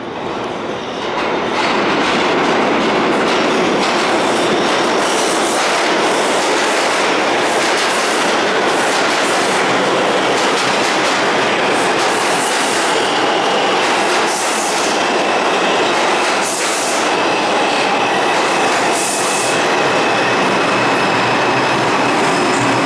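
Bombardier R142 subway train pulling into an underground station and slowing to a stop. It makes a loud, steady rush of wheels and running gear with clacks over the rail joints. A steady high whine runs through the second half as it slows.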